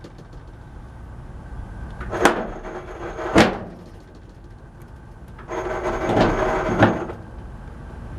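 Metal clanks from a lifting chain holding a heavy compressor head: two sharp knocks a little over a second apart, then about a second and a half of ringing metallic scraping and rattling that ends in another clank.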